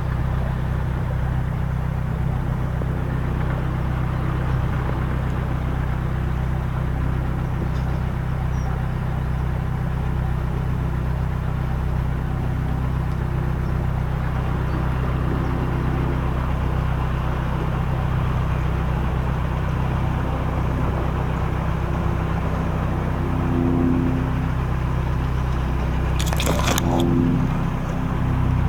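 Narrowboat engine running steadily at low speed, with a constant low hum. Near the end comes a brief scraping rustle, about a second long.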